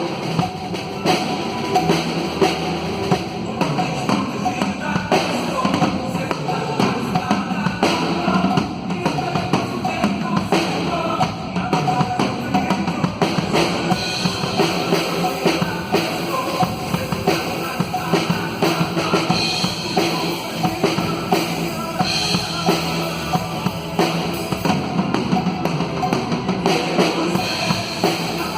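Drum kit played along with a recorded band track in a rock style, with a steady beat on bass drum and snare.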